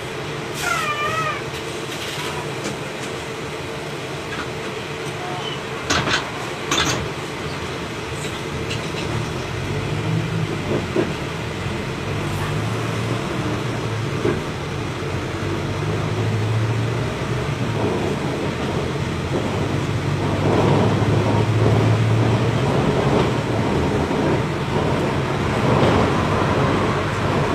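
Diesel engine of a Volkswagen 17.230 ODS city bus running steadily, its note growing louder and stronger from about ten seconds in as it works harder. Two sharp knocks come around six and seven seconds in, and a brief wavering squeal comes near the start.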